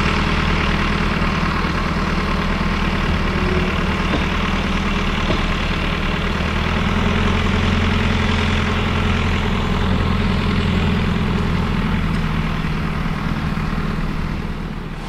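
An engine running steadily at a low, even pitch, easing off slightly near the end.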